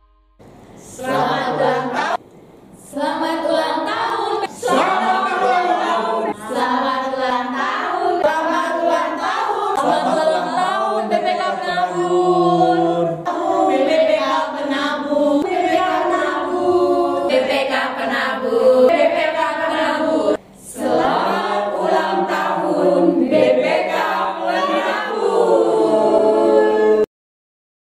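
A group of voices singing a cheerful song together. It starts about a second in and cuts off abruptly near the end.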